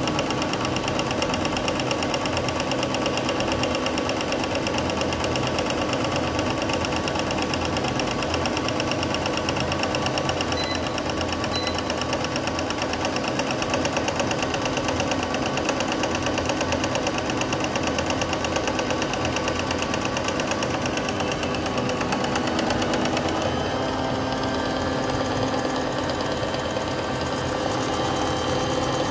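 Electric motor of a countertop appliance running steadily, a fast even whirr with a fine rhythmic rattle; its tone shifts slightly near the end.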